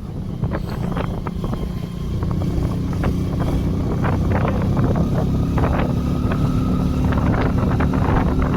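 A vehicle's engine running as it drives along, with wind buffeting the microphone. The engine note gets louder and steadier about two seconds in, then holds.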